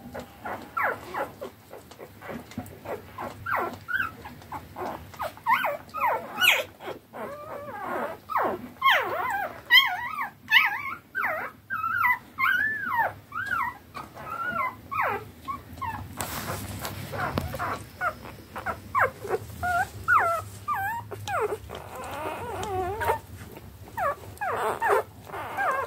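Newborn wire-haired dachshund puppies squeaking and whimpering in many short cries that bend up and down in pitch, overlapping as the hungry litter jostles for teats to nurse.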